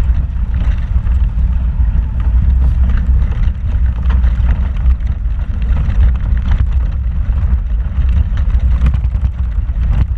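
Off-road vehicle driving slowly over a rocky dirt trail: a steady low engine and drivetrain rumble, with frequent small knocks and rattles from the rough ground.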